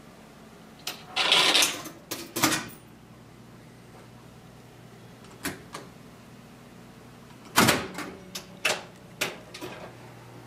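Coins dropping into the coin mechanism of a 1953 Seeburg 100W jukebox with a clink and a short rattling clatter. A few seconds later the selection buttons are pressed: one loud clack, then a run of lighter clicks. A low steady hum comes in about three seconds in and stays.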